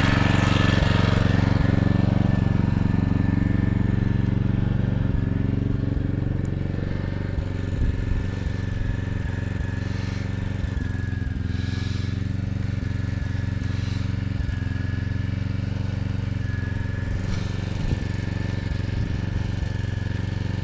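Portable generator engine running steadily at a constant speed.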